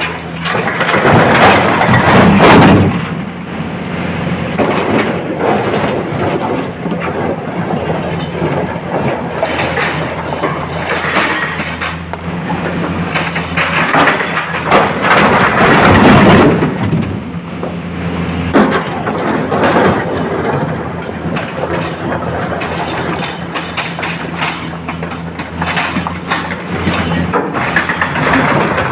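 Hydraulic excavator's diesel engine running steadily under load, with two long, loud rumbling crashes, near the start and about halfway through, as bucket loads of quarry material are dumped into a tipper truck's steel body, and smaller knocks in between.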